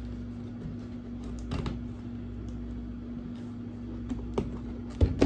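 Hands handling and picking at a figure's packaging box: scattered small clicks and taps, with a louder knock near the end, over a steady low hum.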